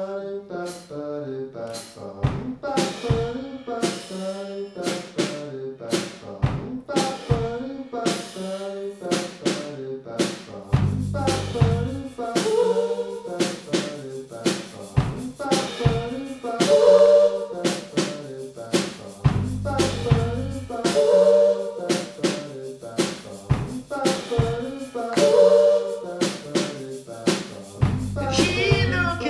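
Live band playing a song: layered, repeating male vocals over a drum kit with snare and kick hits, which come in about two seconds in. A deep bass note sounds roughly every eight seconds, and the singer sings near the end.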